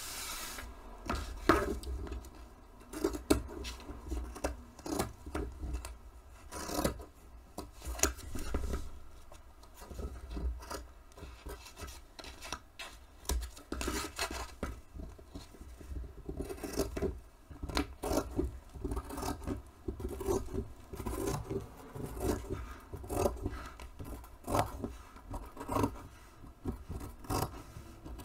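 Scissors cutting through printed fabric along the edge of a cardboard pattern: irregular snips, mixed with the rustle and scrape of the fabric and cardboard being shifted on the table.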